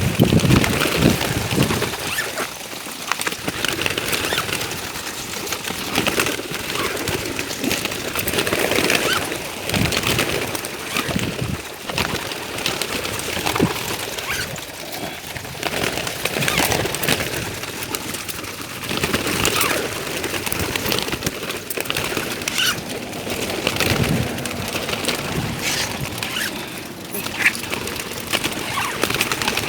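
A flock of racing pigeons flapping and cooing, a dense, continuous clatter of wings, with voices faintly in the background.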